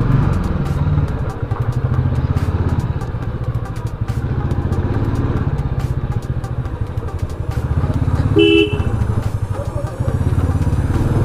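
Motorcycle engine running at low riding speed, heard from on the bike. A short horn honk sounds once, about eight and a half seconds in.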